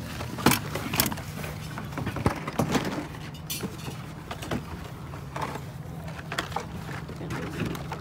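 Scattered sharp clicks and clinks of small diecast toy cars being handled and sorted, over a steady low hum.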